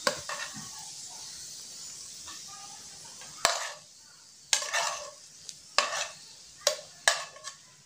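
Cashews and raisins fried in hot ghee sizzling with a steady hiss as the pan is tipped, then a spoon scraping them out of a small nonstick frying pan in several sharp strokes about a second apart, starting about halfway through.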